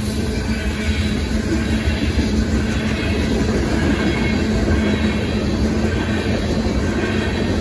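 Covered hopper and tank cars of a Union Pacific manifest freight train rolling past at speed: a steady, loud rumble of steel wheels on rail with clatter over the track, and a steady low tone underneath.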